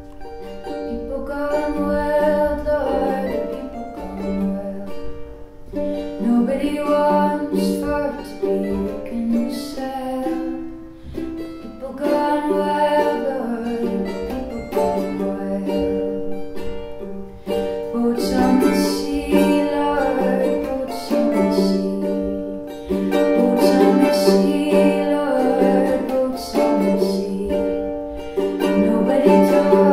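Mandolin played in a slow folk song, with a woman singing over it.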